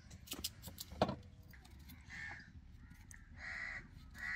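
Crows cawing a few times, about a second apart, in the second half. Before that, sharp knife clicks and scrapes as a radish is peeled, the loudest click about a second in.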